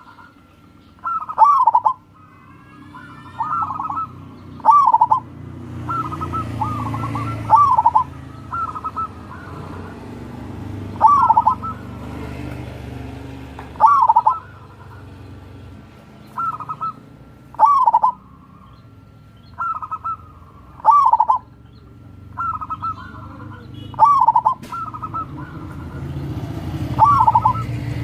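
Zebra dove (perkutut) cooing: short rolling coo phrases repeated every one to three seconds.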